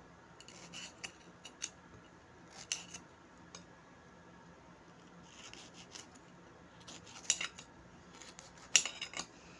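Kitchen knife slicing green bell pepper on a ceramic plate: scattered sharp clicks of the blade striking the plate. The clicks are loudest in the last few seconds.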